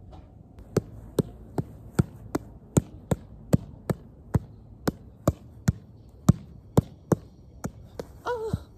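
Soccer ball being juggled with one foot by a seated player: a steady run of sharp touches of the shoe on the ball, about two or three a second, starting under a second in. A short voice sounds near the end.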